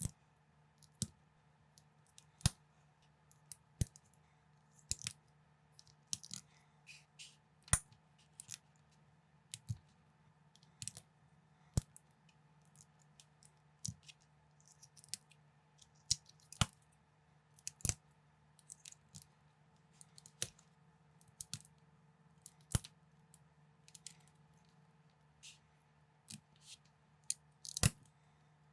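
Plastic LEGO bricks being handled and snapped together: irregular sharp clicks, about one or two a second, over a faint steady low hum.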